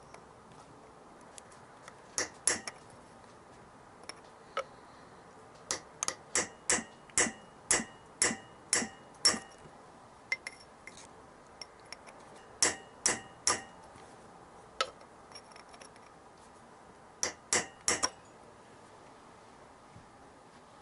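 Hammer striking a cold chisel against the rounded-out head of a seized Allen bolt on a Yamaha XJ900S Diversion's carburettor intake flange, to turn it undone. Sharp metallic clinks come in short groups, with a fast run of about a dozen blows in the middle.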